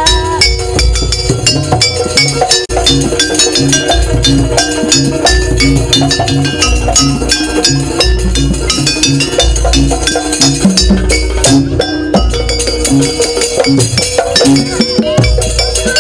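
Jaranan gamelan ensemble playing a sampak: kendang barrel drums beat out a steady, even rhythm under a xylophone struck with a mallet and metallic clinking percussion.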